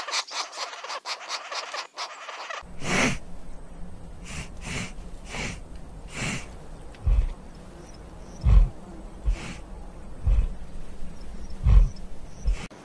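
A woodpecker tapping rapidly at tree bark. A couple of seconds in, it gives way to a wild boar snuffling with breathy snorts and deep grunts as it roots in the soil.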